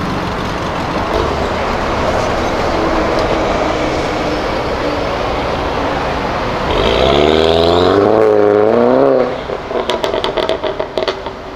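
Street traffic, then about seven seconds in an Audi TT's engine revs hard for about two seconds, its pitch rising and wavering, and cuts off into a string of sharp pops.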